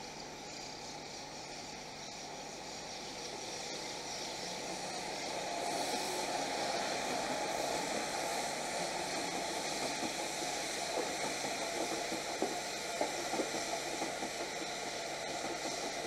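A passenger train passing on the rails. Its running noise swells about five seconds in and stays up, with short wheel clicks over the rail joints in the second half.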